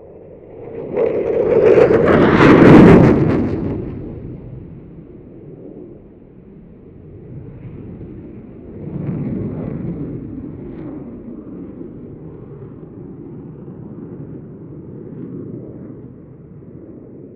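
Eurofighter Typhoon's twin Eurojet EJ200 turbofans in afterburner: loud jet noise that rises sharply about a second in and peaks around three seconds as the jet passes, then falls to a lower, steady level and swells again about nine seconds in.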